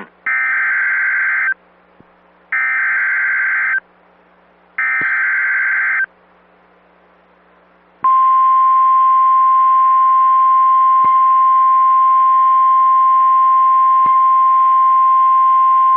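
Emergency Alert System signalling: three screechy bursts of SAME digital header data, each about a second long with a second's gap between them, then, after a short pause, a long steady weather-radio attention tone starting about eight seconds in. Together they announce a National Weather Service severe thunderstorm warning.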